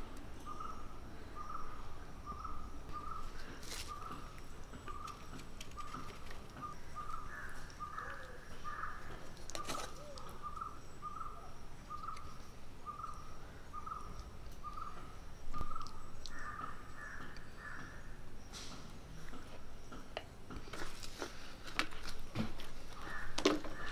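A bird calling a steady run of short, single-pitched notes, about two a second, with a few soft clicks alongside.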